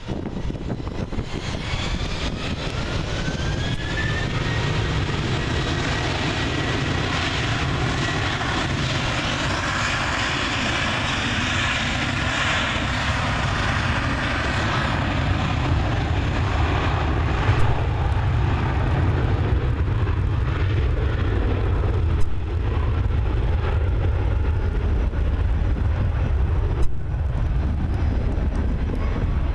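Airbus A321's twin jet engines at takeoff power during the takeoff roll. A rising whine in the first few seconds as the engines spool up, then a loud, steady jet roar that is fullest midway as the airliner passes, leaving a deep rumble as it runs away down the runway.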